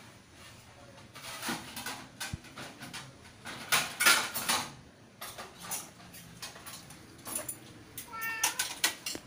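Cats meowing, among short bursts of scratchy noise, the loudest about four seconds in.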